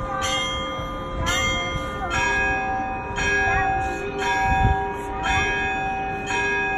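Church bells of St Isaac's Cathedral belfry ringing close by, several bells of different pitches struck about once a second, each stroke ringing on into the next.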